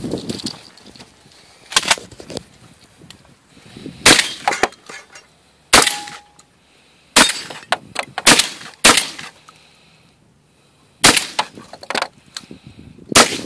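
A shotgun fired repeatedly at close range, about eight sharp shots at uneven spacing, with smaller clicks and clacks between the shots.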